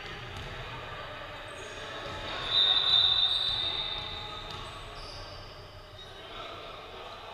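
Referee's whistle blown once, a short loud high tone about two and a half seconds in. Voices and a basketball bouncing on the court are heard around it.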